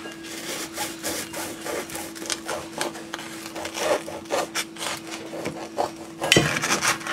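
A long bread knife sawing back and forth through a crusty, seed-topped baked bagel, a rasping scrape with each stroke. A louder knock comes about six and a half seconds in.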